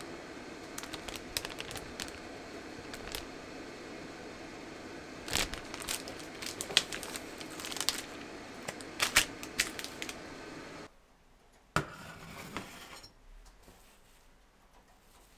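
Plastic food packet crinkling and crackling as it is handled, in bursts of sharp crackles over a steady background hum. About eleven seconds in the hum cuts off suddenly, and a single click follows.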